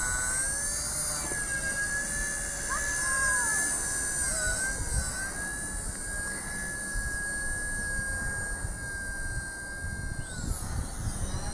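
WLToys Firebird V922 micro RC helicopter's electric motor and rotors whining as it takes off and climbs, the whine rising and dipping in pitch with the throttle, then falling away near the end.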